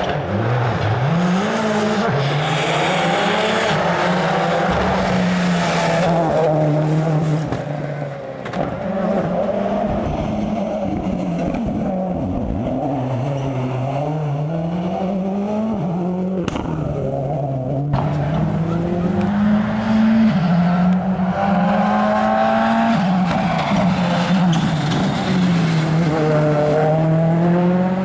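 World Rally Car engines, 1.6-litre turbocharged four-cylinders, revving hard on a rally stage: the pitch climbs and drops again and again through gear changes. There are two sharp cracks just past the middle.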